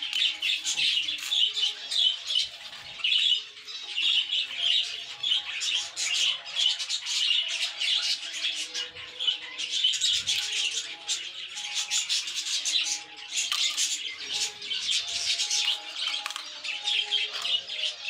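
A colony of budgerigars chattering and chirping continuously, many birds calling at once in a dense, high-pitched chorus.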